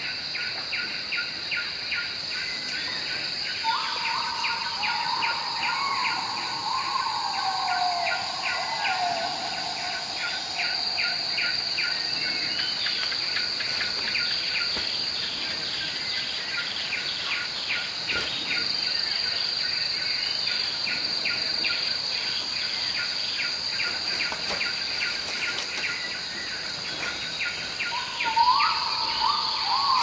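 Forest insect chorus: a steady high-pitched drone with rapid chirping pulses, about four a second. About four seconds in, and again near the end, a louder call jumps up in pitch and then wavers downward over several seconds.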